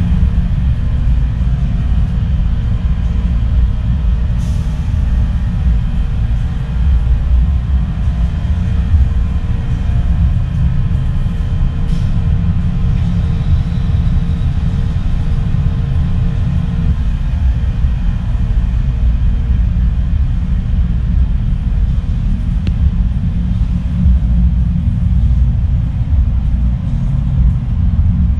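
Steady low rumble and hum of the ferry's engines and machinery, carried through the ship's hull.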